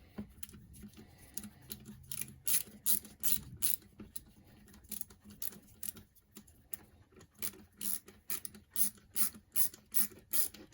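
Hand ratchet clicking in a quick repeated rhythm, about three clicks a second by the second half, as screws are driven into an RC car's diff.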